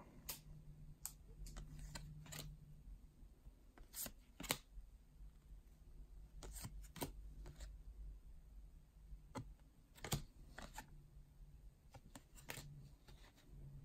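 Paper trading cards being flipped through one at a time: short, light clicks and slides at an uneven pace as each card is pulled from the front of the stack and slipped behind the others.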